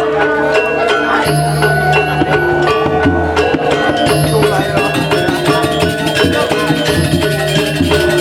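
Balinese gamelan music accompanying a dance: metallophones strike a fast stepped melody over long held low tones.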